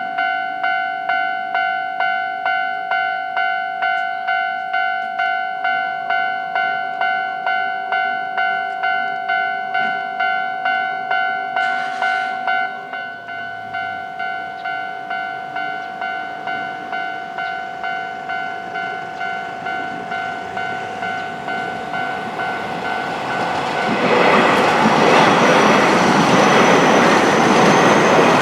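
Japanese level-crossing warning bell ringing, about two strikes a second, getting quieter partway through. Near the end a Keio Inokashira Line electric train passes over the crossing and its running noise takes over.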